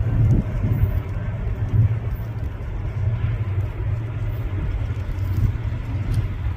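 Freight train rolling by with a steady low rumble.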